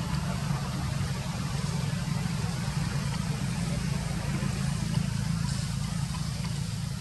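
A steady low rumble of an idling engine, with a faint hiss above it.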